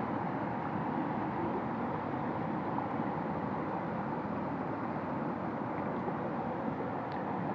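Steady rush of fast-flowing river water over rapids.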